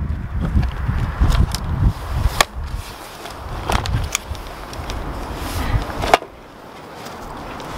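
Guttering being handled and set in place, knocking and clicking against its support several times, the last knock the loudest. A low wind rumble on the microphone runs under it for the first couple of seconds.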